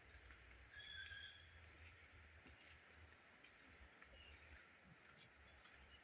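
Faint forest ambience: many short, high, falling chirps repeat throughout, with one clearer bird call about a second in.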